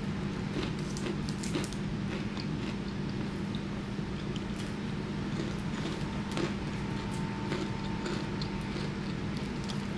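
Hot Cheetos being chewed: a scatter of short, crisp crunches over a steady low hum.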